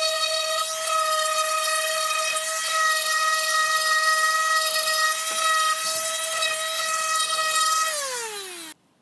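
An electric power tool's motor running with a steady high-pitched whine, then winding down with falling pitch near the end before the sound cuts off abruptly.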